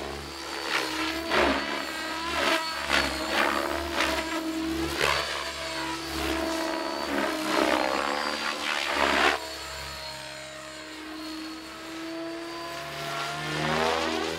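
700-size Compass Chronos RC helicopter flying 3D aerobatics: its rotor blades chop the air in loud repeated pulses while the pitch of its drive rises and falls. About nine and a half seconds in, the pulses give way to a quieter, steadier hum.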